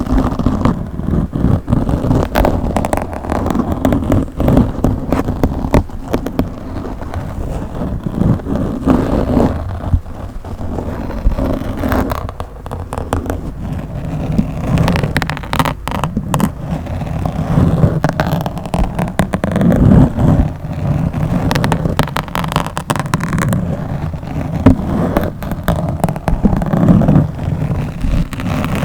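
Fingers scratching and rubbing directly on a microphone: a continuous low, muffled scraping with many sharp crackles and pops scattered through it.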